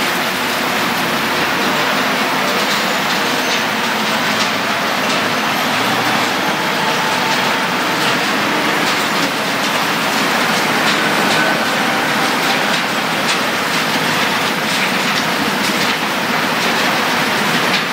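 Waste-sorting machinery running: a belt conveyor feeding mixed rubbish into a rotating trommel screen, a steady loud machine noise with frequent rattles and knocks of waste tumbling inside the drum.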